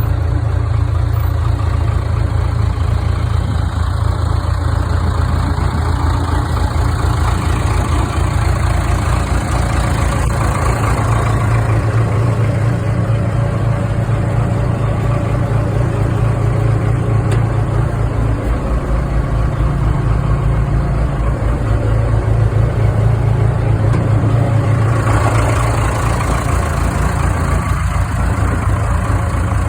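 1987 Case backhoe's engine running steadily, close up, with small changes in its note a few times.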